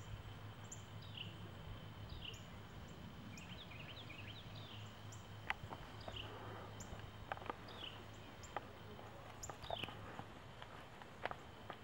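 A bird calling over and over, short falling chirps about once a second, faint, over a low steady hum, with a few sharp clicks in between.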